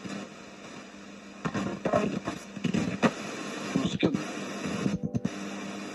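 Ghost-box radio sweeping through stations: a hiss of static, then from about a second and a half in, choppy snatches of broadcast voices chopped off every fraction of a second, with a brief dropout near the end.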